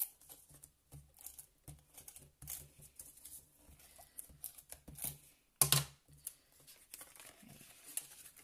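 Card stock being handled and glue tape run onto the box's tabs: a string of small rustles and taps, with one louder sharp click about five and a half seconds in.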